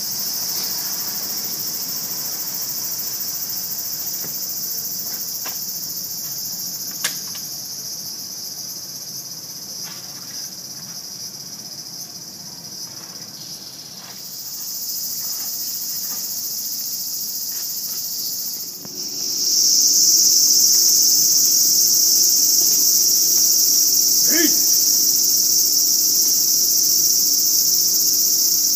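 A loud, steady chorus of cicadas singing, growing louder about two-thirds of the way through. A single sharp click comes about a quarter in, and a short pitched cry near the end.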